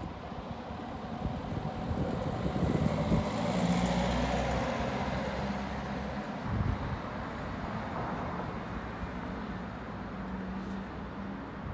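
A motor vehicle's engine running close by on the street, swelling in loudness over the first few seconds to a peak around four seconds in; its deepest hum cuts off about six seconds in while a steadier engine hum carries on.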